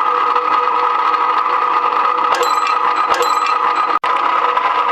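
Electric rebar-working machine running steadily under its motor, with two short metallic clinks that ring briefly, about two and a half and three seconds in. The sound cuts out for an instant near the end.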